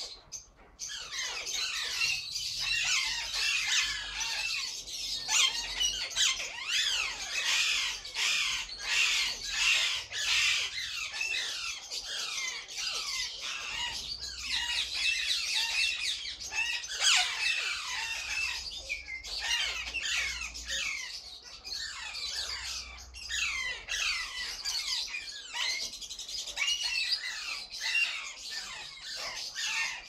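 A flock of Alexandrine parakeets squawking continuously, many short calls falling in pitch and overlapping one another.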